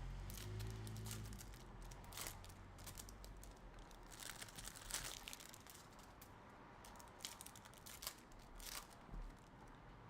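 Faint, irregular crinkling and tearing of hockey card packaging, with short crackles as wrappers are handled and ripped open.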